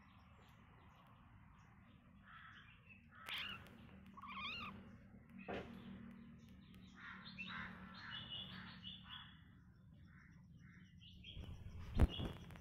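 Kittens play-fighting, giving several short, high, wavering mews and squeaks. A sharp knock near the end is the loudest sound.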